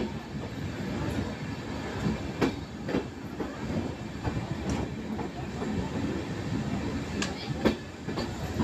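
Passenger train running, a steady rumble of the carriage with a few sharp, irregularly spaced clacks of the wheels over rail joints, heard from inside the moving carriage.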